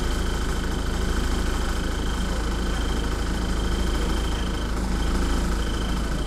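ADL Dart single-deck bus's diesel engine idling, heard inside the passenger saloon: a steady low rumble with a faint, thin high whine over it.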